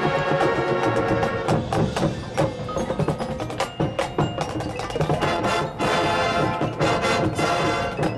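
Marching band percussion passage: mallet percussion and chime-like bell tones ringing under many sharp wood block and drum strikes.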